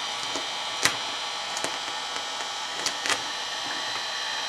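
Wagner heat gun blowing steadily with a high whine as it heats 3M vinyl wrap film, with four sharp crackles from the film as it is stretched by hand; the first, about a second in, is the loudest.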